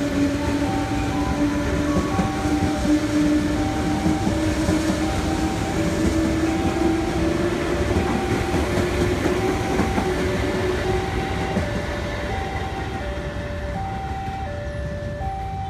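JR 205 series electric commuter train pulling away, its motor whine rising slowly in pitch as it gathers speed over the rumble of the running train. The sound eases off near the end as the train moves away.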